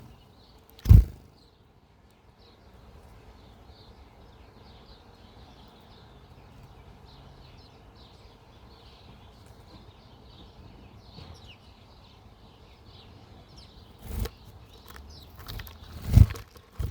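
Small wild birds at a backyard feeder chirping faintly in short, scattered calls. A loud thump about a second in and two more near the end are the loudest sounds.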